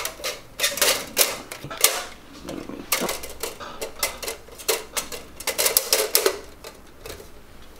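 Irregular sharp metallic clicks and taps of metal engine parts being handled and set in place on an engine block, some in quick clusters.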